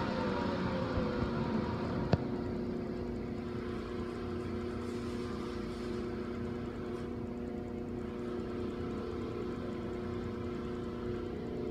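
Sharp Flame surface-mix hand torch burning with a steady hiss and a hum of steady tones. Its pitch falls and it gets slightly softer over the first few seconds as the flame is turned down, then it holds steady. A single sharp click sounds about two seconds in.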